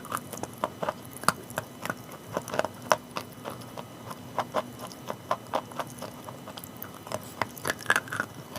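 Chalk being chewed close to the microphone: an irregular run of crisp crunches, several a second.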